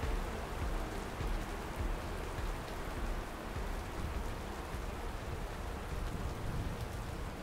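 Steady rain falling: an even, dense patter with a low rumble underneath.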